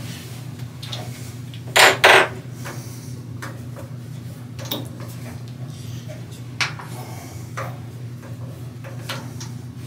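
A cloth rubbing over the metal pad spindles of a Kelmar 35mm film cleaner, with scattered clicks and knocks as the parts are handled; the loudest are a pair about two seconds in. A low steady hum runs underneath.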